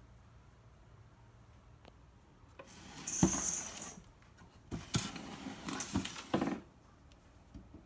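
Hard objects being handled and knocked together, clattering and scraping in two stretches of a second or two each, with a few sharp knocks.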